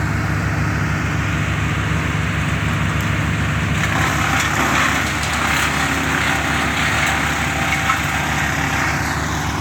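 The engine of tree-service equipment runs steadily with an even, low pulsing beat. From about three seconds in, a rougher rushing noise swells over it and eases off near the end.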